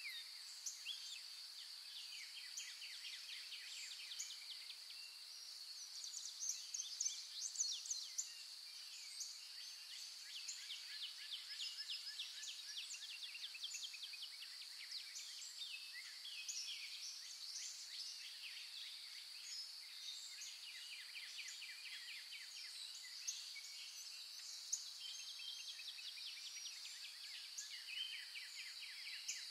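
Faint natural ambience: a steady, high-pitched insect drone with many birds chirping and trilling over it.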